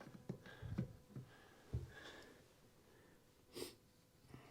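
Quiet handling noise: a few soft low bumps during the first two seconds, and one short sniff about three and a half seconds in.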